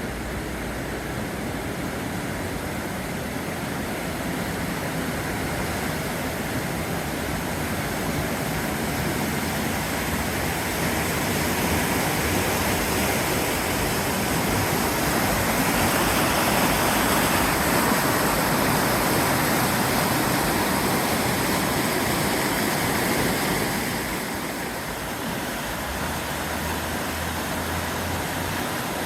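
Swollen river, high with snowmelt, rushing steadily; it grows louder towards the middle and eases about three-quarters of the way through.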